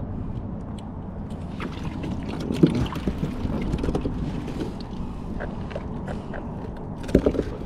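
Steady wind and water noise around a fishing kayak, broken by a few knocks, the loudest about two and a half seconds in and a cluster near the end.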